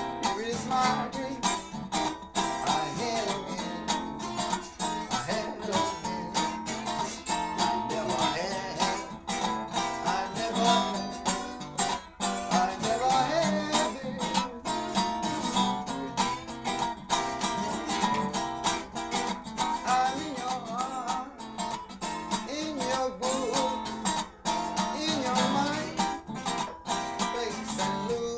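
Blues band playing a song, with strummed and plucked guitar to the fore.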